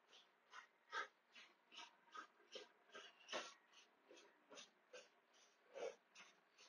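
Faint, quick breaths in a steady rhythm, about two or three a second, from a man exerting himself doing mountain climbers.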